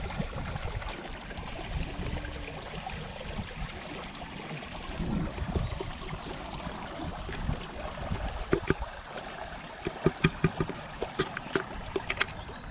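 Running water flowing steadily. A quick run of short, sharp sounds comes in the last third.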